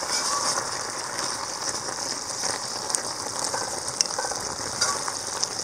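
Perforated metal ladle scraping and clicking against a metal pan as chunks of potato and brinjal gravy are stirred, over a steady sizzle from the cooking gravy.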